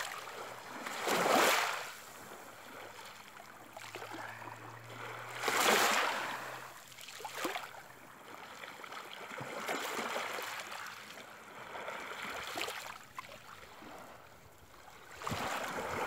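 Small waves washing onto the shore, each one swelling and fading in a soft rush about every four to five seconds.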